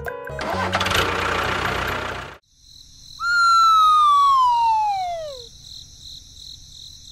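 A noisy wash over low music, then, about three seconds in, a single whistle-like tone that glides steadily downward for about two seconds and fades, with a faint high steady tone behind it.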